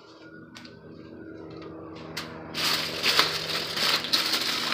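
Aluminium foil crinkling and crackling as a sheet is lifted and folded over a tray of food, starting loud about halfway through. Under it a steady low drone slowly grows louder.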